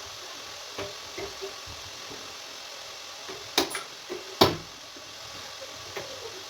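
A few sharp knocks and clicks over a steady hiss, the two loudest close together about three and a half and four and a half seconds in.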